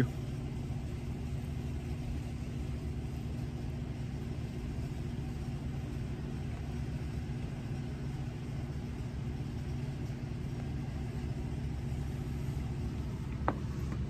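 Steady low rumble with a faint hum under it, unchanging, and a single short click near the end.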